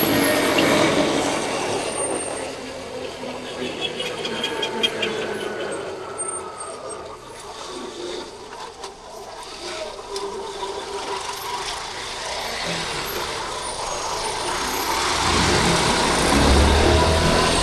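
City street traffic heard from a moving Yamaha Crosser 150 motorcycle: its engine and the vehicles around it. Quieter in the middle, then louder near the end with a deep rumble from heavy traffic.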